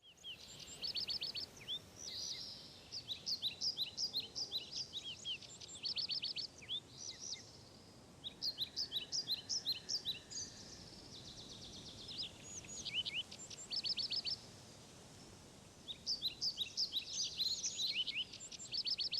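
Songbird singing: bursts of quick, high chirps and rapid trills, about five phrases with short pauses between.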